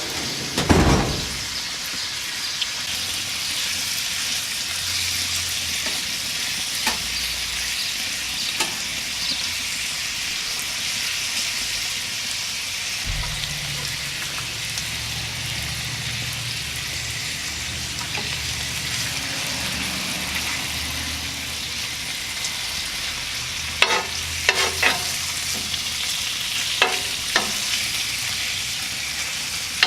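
Food sizzling steadily in butter on a cast iron griddle, with a cluster of sharp clicks or scrapes near the end.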